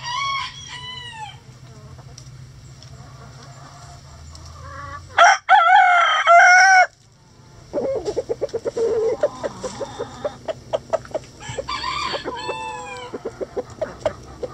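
A rooster crows once, the loudest sound, a drawn-out call of about a second and a half near the middle. Around it, hens give a few short falling squawks at the start, then rapid runs of clucking with more drawn-out squawks near the end.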